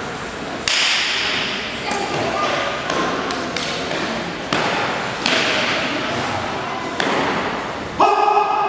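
Sharp thuds from a martial artist's strikes and stamps while performing a Tong Bei Chuan form, one every second or so. Each thud trails off briefly in the room's echo. Faint voices sit beneath them.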